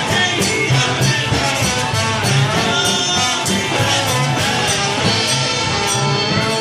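A band playing live, with singing over a steady beat of drum hits.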